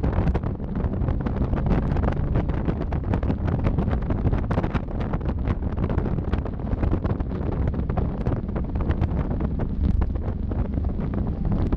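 Steady wind buffeting the microphone in the open cockpit of a top-down 1993 Mazda MX-5 Miata on the move, gusting irregularly, with the car's running noise low underneath.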